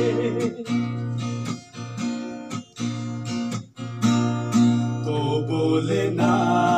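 Acoustic guitar strumming chords in a live song accompaniment, with a singer's voice coming back in near the end.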